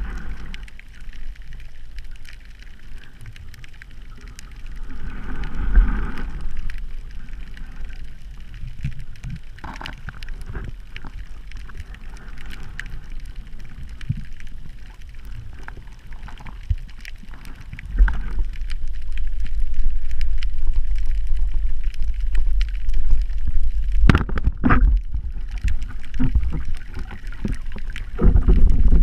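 Underwater water noise picked up by a camera in its housing while a diver swims: a low rumbling flow of water with scattered sharp clicks and knocks. It grows louder in the second half, with the loudest knocks near the end.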